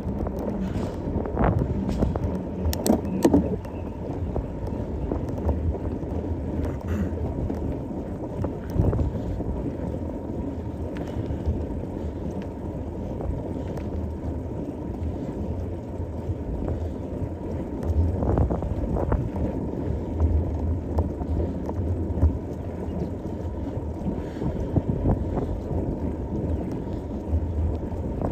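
Wind rushing over the microphone of a moving mountain bike, a steady low rumble with occasional sharp knocks and rattles from the bike over bumps.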